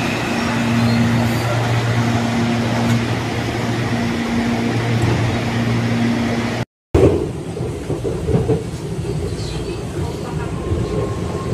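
Electric commuter train at the platform, its equipment humming with a low tone that switches on and off every second or so. After a sudden cut about two-thirds of the way through, the rumble and noise inside the passenger car follows, with a faint thin tone near the end.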